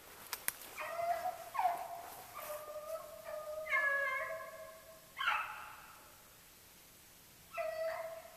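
Beagles baying on a rabbit's trail: a string of drawn-out bawls, then a pause before one more bawl near the end. Two sharp clicks come just before the first bawl.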